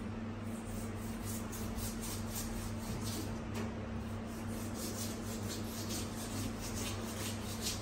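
A knife scraping along a whole fish in quick repeated strokes, a few a second, as the fish is scaled. Under it runs a steady low electrical hum.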